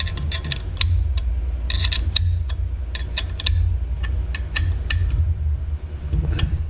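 Small metallic clicks and taps of a hex key working bolts into an aluminium bracket plate, irregular and scattered throughout, over a steady low rumble.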